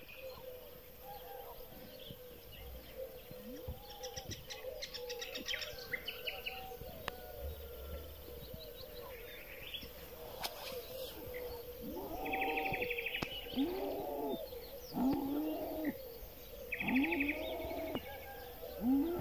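Birds calling in open countryside: scattered chirps and trills, then a run of louder repeated calls about every second and a half in the second half, with two short buzzy trills among them.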